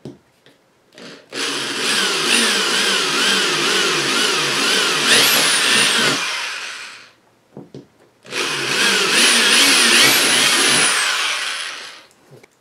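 Electric drill with a twist bit boring through a fiberglass hood in two runs of about five and four seconds with a short pause between, the motor whine wavering up and down in pitch a few times a second. The holes go through cleanly without chipping the fiberglass.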